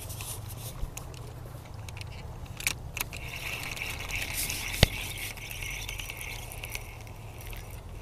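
Fishing reel being cranked: a buzzing whir through the middle few seconds, over a low steady rumble, with a few sharp knocks, the loudest just before the five-second mark.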